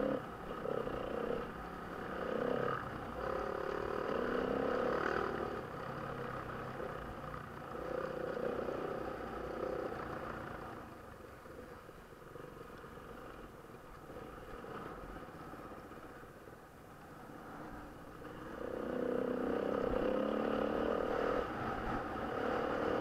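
Off-road motorcycle engine heard close up from the rider's own bike, the throttle opening and closing in repeated surges, easing off for several seconds in the middle and opening up again near the end.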